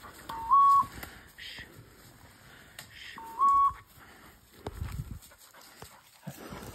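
Electronic beeper collar on a pointing setter sounding its point signal: a two-note beep, a lower note stepping up to a higher one, heard twice about three seconds apart, meaning the dog is standing on point. Footsteps and brush rustle in leaf litter between the beeps.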